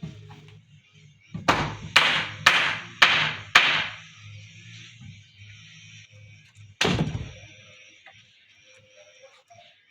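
Hammer blows on wood: five sharp strikes about half a second apart, then a single strike a few seconds later.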